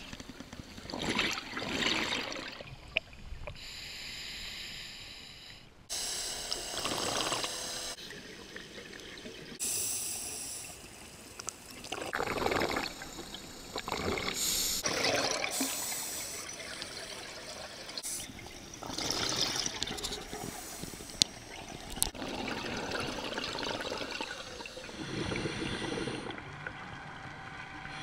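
Scuba diver breathing through a regulator underwater: bursts of bubbling exhaust every few seconds, with quieter stretches between.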